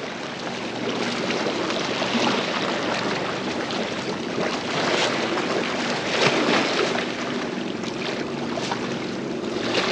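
Waves washing and splashing against a jetty: a steady rushing wash of water that swells and ebbs, with a few brief splashes.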